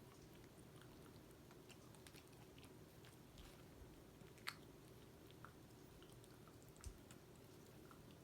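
Dog chewing a treat: faint, scattered crunching clicks, with one sharper click about four and a half seconds in and a soft low thud near the end.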